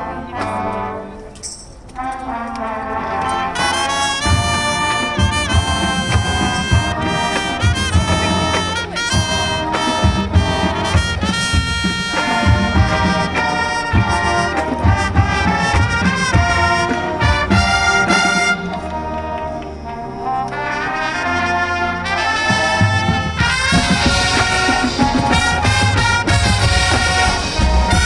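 High school marching band playing a loud brass-led passage, trumpets and trombones carrying sustained chords, easing off briefly about two seconds in and again near twenty seconds before building back up.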